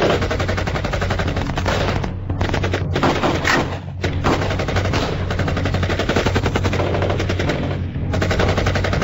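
Rapid, sustained automatic gunfire, shots coming many per second, with brief pauses about two, three, four and eight seconds in.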